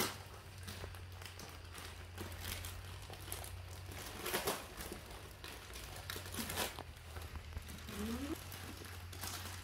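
Plastic clothing bags crinkling and rustling in irregular bursts as they are handled, with a brief rising squeak about eight seconds in.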